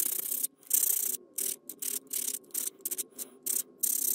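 A sanding block rubbed in short strokes on a small white plastic model part, a little over two strokes a second.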